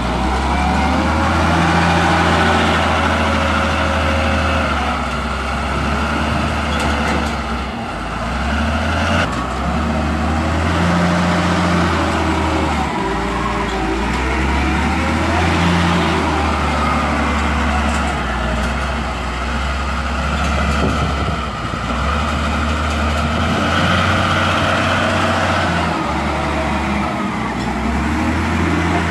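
Caterpillar 950F wheel loader's diesel engine working hard through a truck-loading cycle, its revs rising and falling every few seconds as the bucket is lifted, tipped and lowered.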